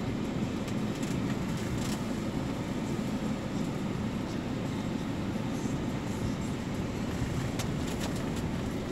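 Vehicle driving slowly over a rough dirt track, heard from inside the cabin: a steady low engine and road rumble, with a few light rattles and clicks near the end.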